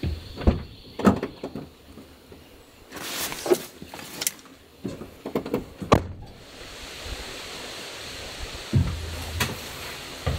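Handling sounds at a pickup truck: a door opening and a heavy backpack pulled off the seat, a run of clunks, knocks and rustles over the first six seconds. Then a steady hiss with a few thumps, a person stepping up into a trailer with the pack.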